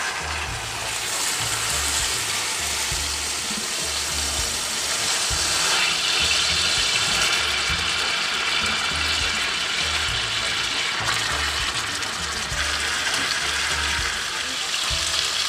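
Beef chuck roast searing in a hot pan, sizzling steadily in its juices and Worcestershire sauce.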